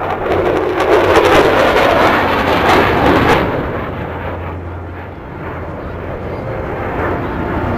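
F-16 fighter jet making a low flyby pass: a loud jet roar that turns duller about three and a half seconds in as it passes, fades, then builds again near the end.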